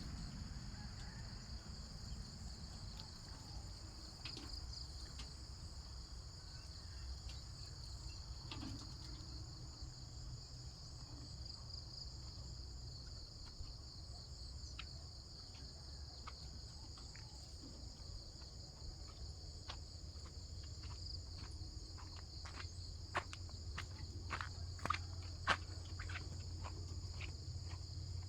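Steady high chirring of an insect chorus in farm fields, over a low steady rumble. A run of sharp clicks comes in the last third, the loudest near the end.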